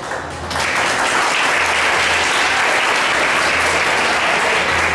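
Audience applauding in a council chamber, a steady clatter of many hands that swells up about half a second in.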